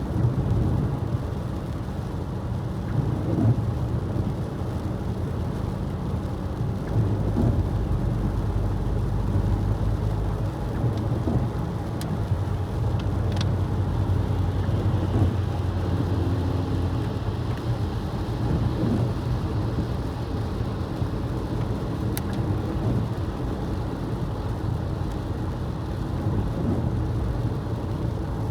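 Car driving on a wet, snowy road: a steady low rumble of engine and tyres with rain and road spray noise, and a few faint clicks.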